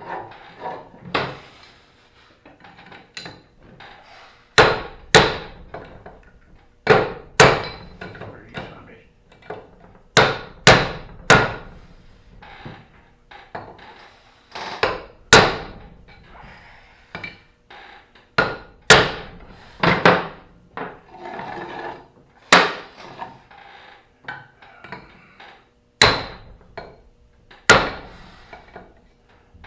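Hammer blows tapping a new rear axle seal into the axle housing of a Ford 9N tractor to seat it evenly. The sharp, ringing strikes come at an uneven pace, some in quick pairs, with short pauses between.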